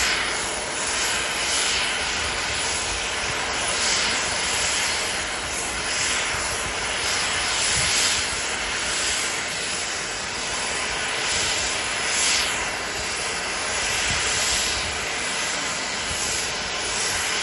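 Indian Air Force Mi-17 helicopter running on the ground with its main rotor turning: a steady, loud rush of turbine and rotor noise that swells gently every second or two.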